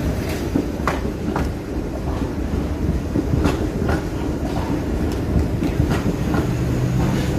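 TTC Bombardier Flexity Outlook low-floor streetcar rolling across the intersection's track crossing. It gives a steady low rumble with irregular sharp clacks as its wheels cross the rail joints and crossings.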